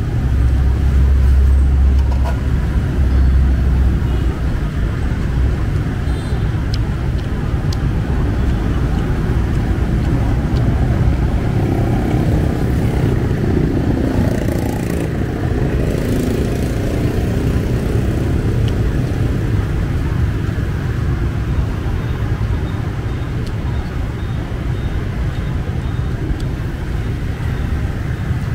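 Steady road traffic going by, with a heavy low rumble from a passing vehicle in the first few seconds.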